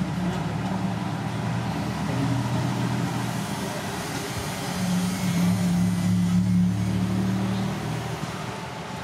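A motor engine running steadily with a low hum, growing louder about five seconds in and easing off near the end.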